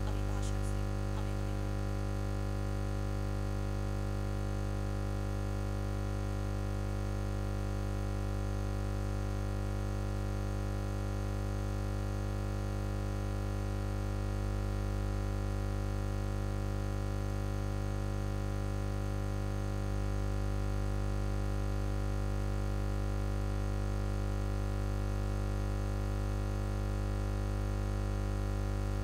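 Steady electrical mains hum from the sound system: a low buzz with many even overtones, unchanging in pitch.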